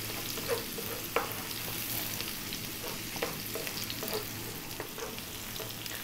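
Sliced onion and chopped garlic sizzling in hot sunflower oil in a non-stick frying pan on high heat, with a wooden spoon stirring and knocking against the pan a few times.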